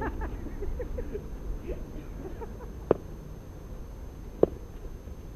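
Two sharp knocks about a second and a half apart, cricket balls being struck in practice nets, over a low steady rumble of wind on the microphone.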